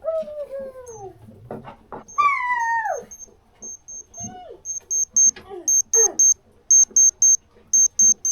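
An animal's drawn-out cries, each falling in pitch, at the start and again about two seconds in, with a few shorter calls after. From about three seconds in, a high electronic beeping in quick groups of three, about once a second, is the loudest sound.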